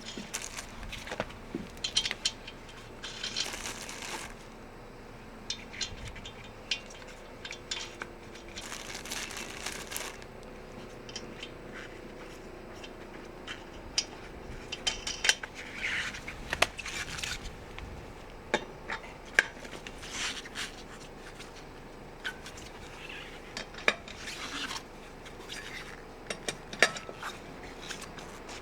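Irregular metallic clinks, knocks and scrapes of hand tools and parts being handled during a tyre change, with a couple of brief rushing noises in between.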